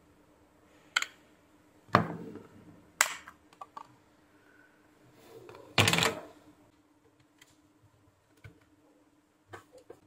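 Sharp plastic clicks and snaps of a phone's back cover being pried off its clips with a plastic opening tool and handled. There is a click about a second in, louder snaps near two and three seconds, a longer, louder clatter about six seconds in, and a few faint ticks after.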